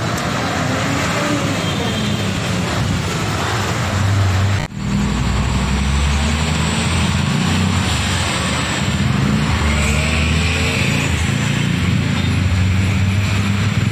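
Diesel truck engines running as heavy trucks pull slowly past in city traffic, a Shacman six-wheel cargo truck among them, with a low, steady engine sound that grows louder after a brief break about five seconds in.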